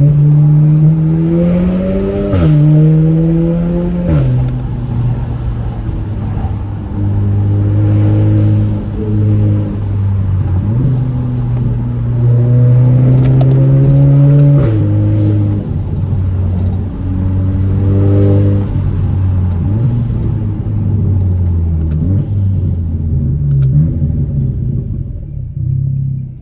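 Audi A4 with a loud exhaust accelerating hard through several gears. Engine pitch climbs and drops suddenly at each upshift of the dual-clutch (DSG) gearbox, with a short sharp crack at the shifts, the DSG shift fart. Revs ease off and fall away near the end.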